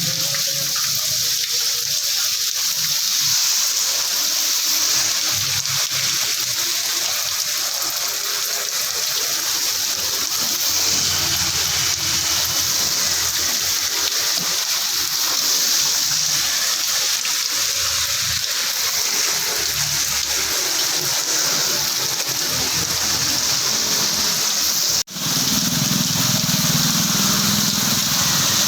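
Heavy rain pouring down steadily in a dense hiss. About 25 seconds in the sound cuts out for an instant, and then a low rumble joins the rain.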